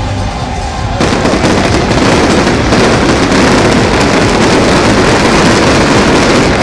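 Display fireworks going off in a dense, rapid barrage of crackles and bursts, which jumps sharply louder about a second in and keeps up without a break.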